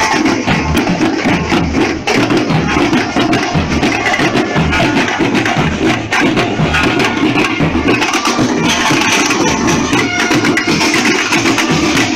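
Marching band drumline playing a dense, continuous rhythm: rapid snare drum strokes over regular bass drum beats.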